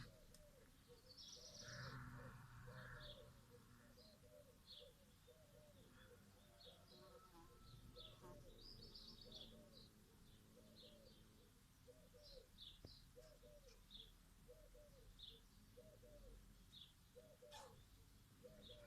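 Faint birdsong: scattered high chirps over a steady series of low, repeated calls about twice a second.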